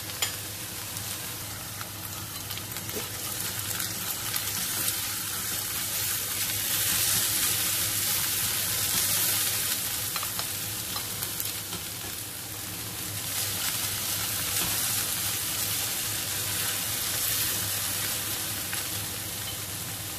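Minced beef, onion and carrot sizzling in oil in a stainless steel frying pan, a steady frying hiss that swells louder a few seconds in and again later.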